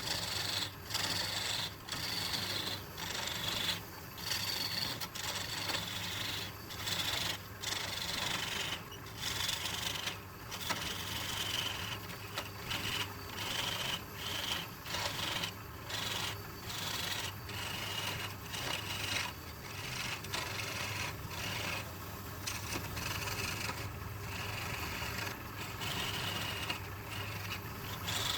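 Wood lathe running with a steady motor hum while sandpaper or a turning tool is pressed against the spinning wooden workpiece, rubbing in short passes that break off and resume about once a second. A high whine from the contact slowly falls in pitch.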